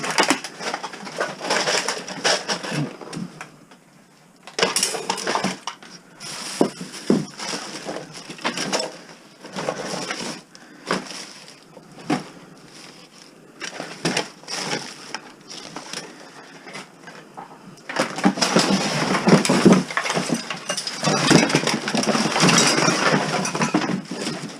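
Household clutter being handled and shifted: irregular knocks, clinks and rattles of hard objects with rustling between them, getting busier and denser over the last several seconds.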